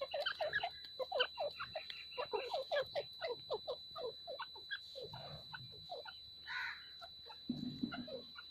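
Grey francolin (teetar) giving a rapid series of short, falling call notes, about four or five a second, that thin out after about four seconds.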